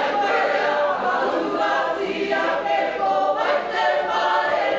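A large group of men and women singing together unaccompanied, held notes in several voices at once.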